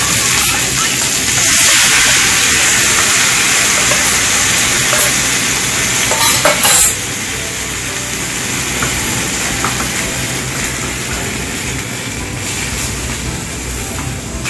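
Napa cabbage stir-frying in a hot metal pan on a gas burner, sizzling steadily as seasoning is poured over it, with a few clinks of a utensil. The sizzle drops in level about seven seconds in.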